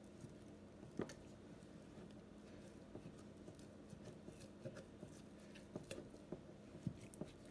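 Silicone spatula stirring thick sourdough starter in a glass mason jar: faint wet squishing, with scattered soft clicks.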